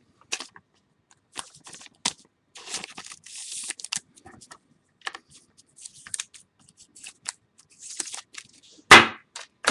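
Trading cards and their plastic holders being handled on a table: scattered clicks, scrapes and rustles, with a sharper knock near the end.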